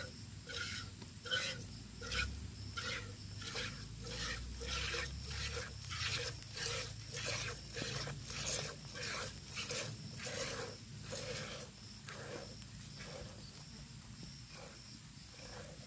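Milk squirting from a cow's teats into a steel pail during hand milking, in a steady rhythm of about two squirts a second. The squirts grow fainter over the last few seconds.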